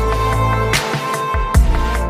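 Electronic background music with a steady beat: deep bass drum hits and a sharp snare-like hit about once a second, over short repeating synth notes.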